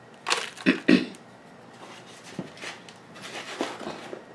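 A hand scraping and scooping loose potting soil inside a plastic plant pot: a few loud scrapes about a second in, then softer, scattered scraping and rustling.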